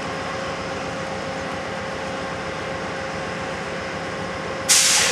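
Steady hum of a standing passenger train's machinery. Near the end comes a sudden, loud, short hiss of air venting from the train's air system.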